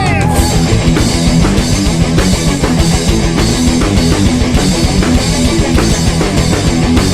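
Heavy rock instrumental passage: electric guitar and a drum kit keeping a steady, fast beat, with a sung note fading out just after the start.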